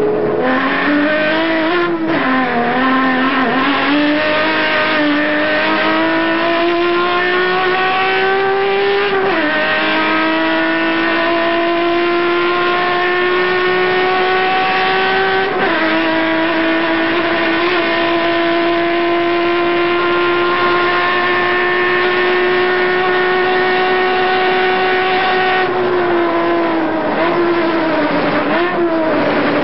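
Turismo Carretera race car engine heard from on board, pulling hard down a straight. The revs climb steadily with two sharp upshifts, about nine and sixteen seconds in, then hold steady at high revs. Near the end the revs fall and waver as the driver lifts off.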